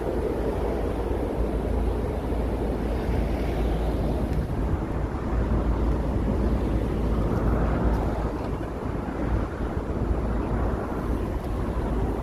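City street traffic: a steady rumble of passing vehicles, with one growing louder about seven seconds in.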